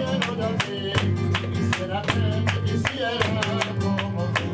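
Live sevillanas: flamenco guitar strumming while a male singer sings, over sharp percussive strikes at about four a second.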